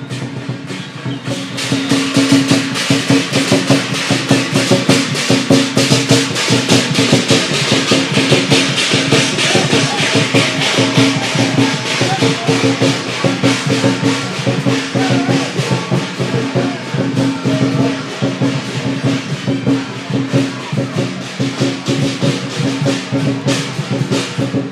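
Chinese lion-dance percussion ensemble playing: a rapid, continuous beat of drum and crashing cymbals, growing louder about a second and a half in, over a steady low hum.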